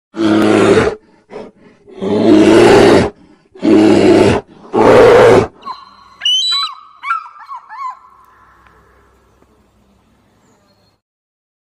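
Four loud, rough roars from a large animal, each about a second long. Then, about six seconds in, a bald eagle's high, chattering calls, quick rising and falling whistles that trail off.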